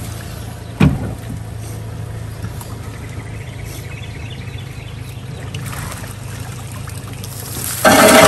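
Honda 90 outboard idling with a steady low hum while a wire-mesh crawfish trap is hauled up out of the water and drains. There is a single knock about a second in, and a loud clatter starts near the end as the trap is handled at the boat.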